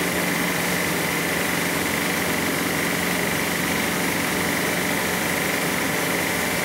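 Electric-motor-driven drum of a puffed-rice (muri) roasting machine running steadily: a continuous machine hum with a constant high whine over it.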